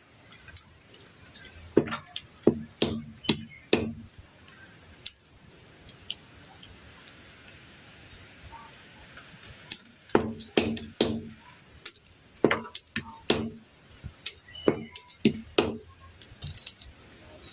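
Chinese olives being chopped, sharp knocks of the blows coming in quick clusters, with a pause of about six seconds in the middle.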